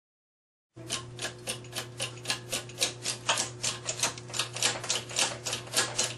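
Rapid, even mechanical clicking, about four clicks a second, over a steady low hum. It starts abruptly just under a second in, out of silence.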